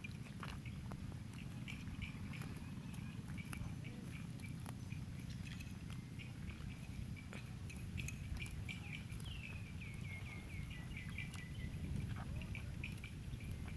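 A cow tearing grass and chewing: crisp, irregular clicks and crunches over a steady low rumble. High chirping runs through it, with a short falling run of chirps about ten seconds in.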